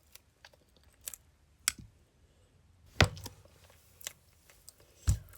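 Close-up eating sounds: a handful of sharp mouth clicks and smacks as a person chews food, loudest about three seconds in and again near the end.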